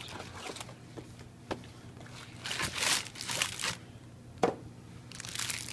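A cardboard frozen-food box and plastic sandwich wrappers being handled: rustling and crinkling in a few short bursts, with a couple of sharp taps, as the wrapped sandwiches are taken out and laid down.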